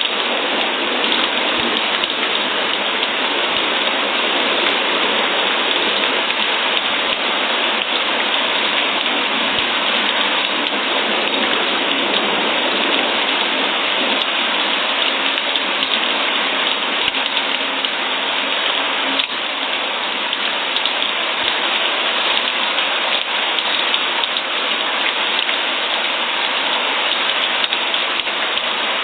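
Steady rain falling, an even hiss of drops on a surface with faint scattered patters.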